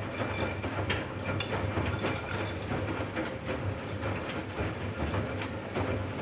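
Arçelik 2200 front-loading washing machine tumbling a wet load in its intermediate rinse: the drum motor hums steadily under water sloshing, with irregular clicks and knocks as the laundry turns over.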